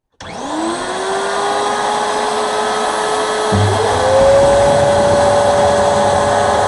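Electric wood router switched on, its motor spinning up to a steady high whine. About three and a half seconds in the pitch steps higher and a low rumble joins.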